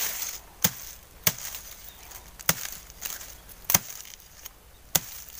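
Hand blade chopping five times into the soil and bamboo roots at the base of a bamboo clump to cut out a bamboo shoot: sharp, separate strikes about a second or more apart, the fourth the loudest.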